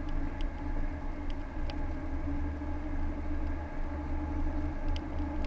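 Car engine and road noise heard inside the moving car's cabin: a steady low rumble with a hum, and a few faint ticks.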